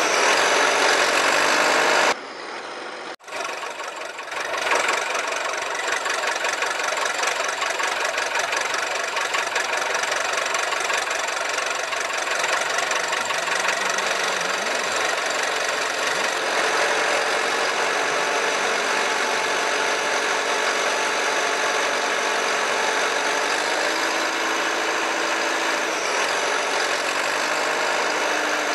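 A vehicle engine running steadily. It drops away sharply about two seconds in and comes back a couple of seconds later.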